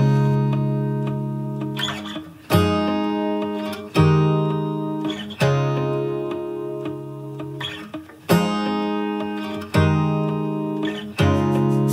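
Background music: strummed acoustic guitar chords, each struck and left to ring out before the next.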